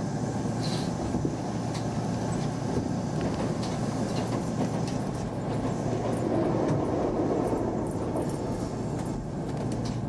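Kintetsu electric train running slowly, heard from inside its cab: a steady rumble of wheels on rails with a few faint clicks, a little louder about six seconds in.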